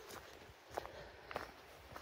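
A hiker's footsteps on a dirt trail strewn with dry fallen leaves: about three crunching steps, one every half second or so.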